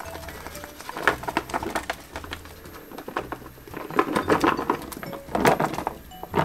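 Chunks of carrot and onion tipped from a plastic tub into a metal pot of lamb, landing in clusters of knocks and rattles. The main bursts come about a second in, around four seconds in and about five and a half seconds in, the last the loudest.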